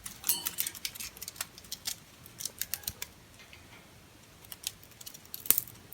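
Green-cheeked conure cracking and chewing a toy with its beak: irregular sharp clicks and crunches, busiest in the first three seconds, with one louder crack near the end.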